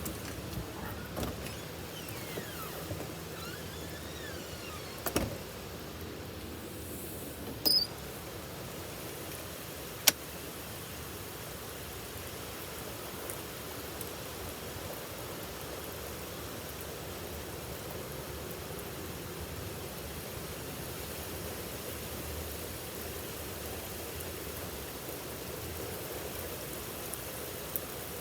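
Heavy rain falling steadily, with a few sharp knocks in the first third, the loudest about ten seconds in.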